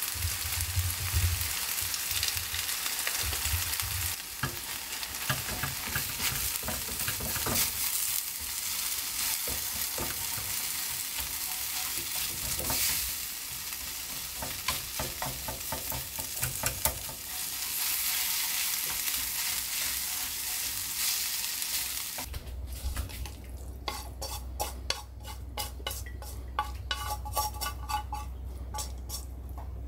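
Yakisoba sizzling in a hot iron frying pan, stirred and tossed with wooden chopsticks that click and scrape against the pan. About 22 seconds in, the sizzling stops and only separate clicks and scrapes of the chopsticks on the pan remain as the noodles are pushed out onto a plate.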